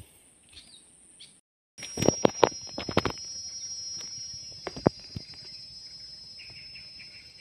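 Outdoor creekside ambience: faint at first, then after a sudden cut several sharp knocks and rustles as the camera moves through grass, over a steady high-pitched tone, with a chirping call near the end.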